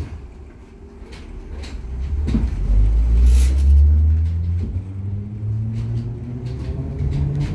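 A brief thud at the start. Then the H5 HÉV electric suburban train pulls away, heard from inside the carriage: a low rumble builds, and the traction motors' whine rises slowly in pitch as it gathers speed.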